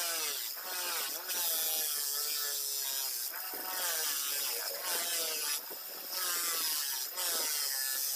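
Powertec bench grinder with a cloth buffing wheel running as a motorcycle front hub is pressed against it. Its whine sags in pitch and recovers over and over as the part is pushed in and eased off, with several short rasping bursts.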